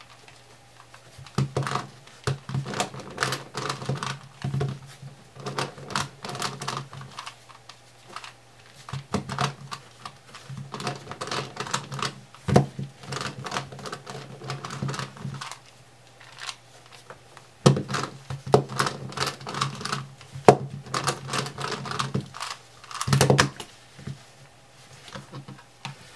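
Plastic Rex Cube, a corner-turning twisty puzzle, clicking and clacking as it is turned quickly by hand, in bursts of rapid moves with short pauses between.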